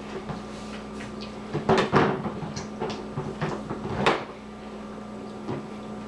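A few sharp knocks and clatters, the loudest about two seconds in and again near four seconds, over a steady low hum.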